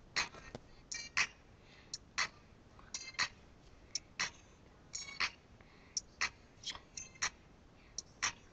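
Faint, tinny music leaking from headphones, where only the percussion comes through: sharp ticks in a steady beat about once a second, many of them doubled.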